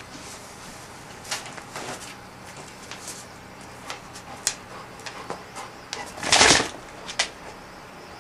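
A golden retriever's claws clicking irregularly on a wooden floor as it walks, with one short, louder rushing burst about six seconds in.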